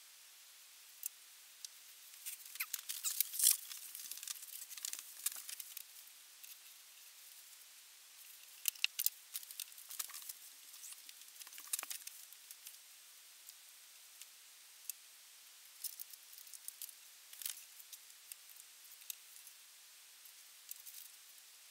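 Ink pen and brush scratching and tapping on drawing paper: clusters of short, dry scratches and clicks, busiest in the first half and thinning to scattered ticks later.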